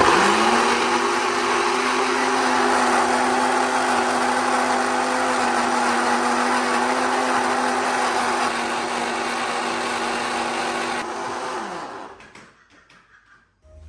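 Electric blender blending onions and crayfish: the motor starts abruptly, spins up, runs steadily for about eleven seconds, then winds down with a falling pitch.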